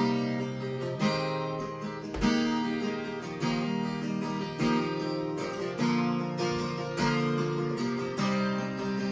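Acoustic guitar strumming chords in an instrumental passage between sung verses, with a strong strum about once a second that rings and fades before the next.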